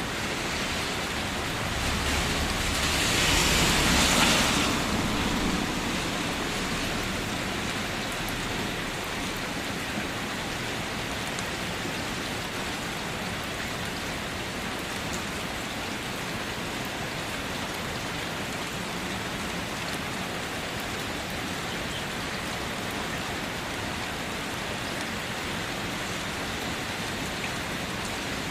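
Steady light rain, an even hiss throughout. About two seconds in it swells louder for a few seconds, with a low rumble under it, then settles back to the steady rain.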